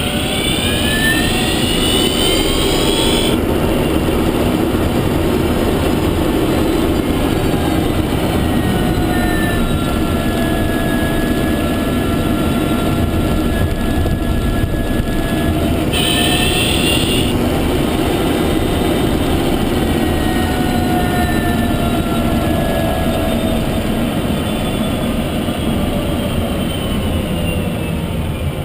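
Renault Zoe's Q210 electric drive motor whining under way over steady road and tyre noise. The whine climbs in pitch at first, breaks off suddenly about three seconds in, climbs again briefly around the middle, then slowly falls.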